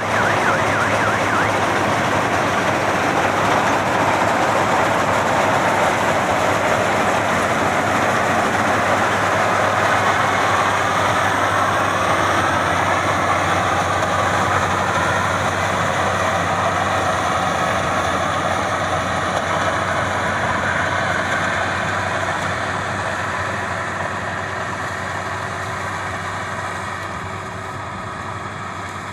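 Maxxi Bimo 102 combine harvester running continuously with a steady engine drone and dense mechanical noise, slowly getting quieter over the last several seconds.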